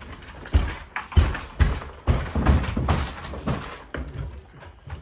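A mattress being slid and bumped down a staircase: a run of irregular thumps, about six or seven, with scraping and rustling between them.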